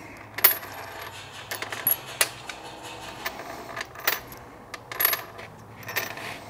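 Steel and brass washers clinking as they are picked up and dropped onto bolts on a steel parts tray: a string of sharp, ringing metallic clicks, irregular, roughly one every second or so.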